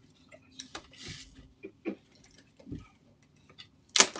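Irregular small clicks and knocks of a front door's handle and lock being handled and tried, with a short scrape about a second in and a louder sharp click near the end.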